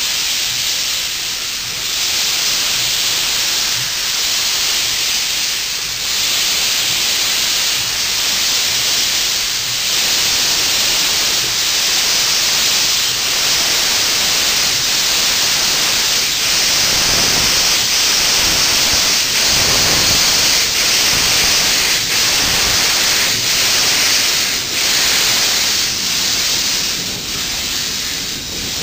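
Southern Railway 630, a 2-8-0 steam locomotive, with steam hissing steadily and loudly from its open cylinder drain cocks.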